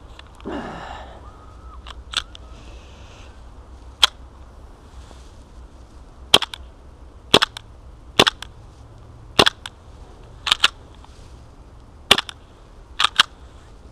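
KWA H&K Mk23 gas-blowback airsoft pistol firing about a dozen sharp, unevenly spaced shots, some in quick pairs, with a brief handling noise near the start. It is running on propane in sub-zero cold and running out of gas, so the slide barely cycles and the BBs are no longer feeding.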